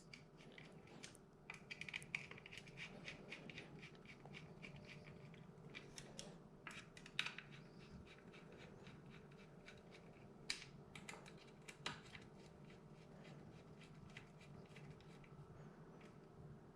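Faint clicks and scraping of a 2.5 mm Allen key turning small screws to fasten a cheek piece onto a metal mounting plate. A quick run of ticks comes about two seconds in, followed by a few sharper single clicks.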